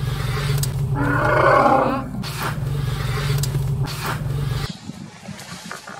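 A wild Sri Lankan elephant gives a loud, rough roar lasting about a second, starting about a second in, over the steady low idle of a safari jeep's engine. The engine hum cuts off suddenly near the end.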